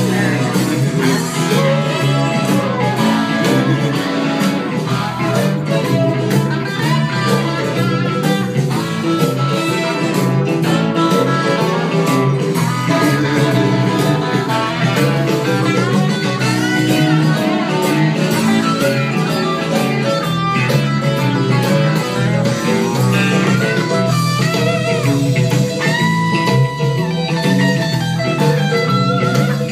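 Loud, continuous guitar-led music with a steady level throughout and little deep bass.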